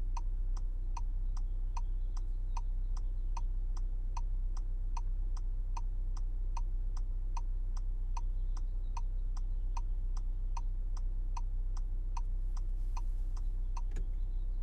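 Hazard-light flasher clicking steadily inside a 2026 Volkswagen Jetta's cabin, about two and a half ticks a second, over the low hum of the idling engine. A single sharper click comes near the end.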